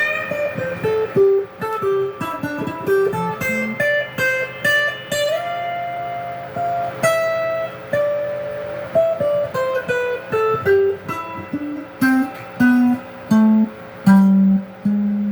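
Electric guitar from an IYV 'Greeny' tribute model played clean in the middle pickup position, with its neck and bridge pickups out of phase: single-note lead lines with a bend upward about five seconds in, held, and lower notes near the end.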